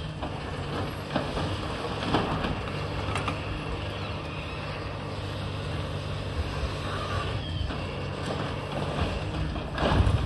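Long-reach demolition excavator's diesel engine running steadily, with a few knocks and crashes of concrete debris breaking off and falling, the loudest near the end.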